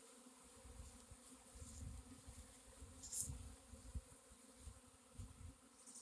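Honey bee swarm buzzing: a faint, steady hum of many bees in flight. Irregular low thumps on the microphone run through it, with a brief rustle about three seconds in.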